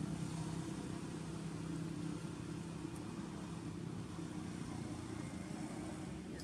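Steady low engine hum that slowly grows a little fainter.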